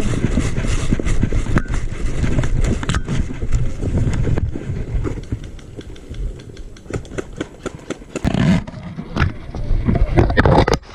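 Heavy rumbling wind and handling noise on the microphone, with irregular knocks and scuffs from movement. It eases off about halfway through, then flares up again near the end.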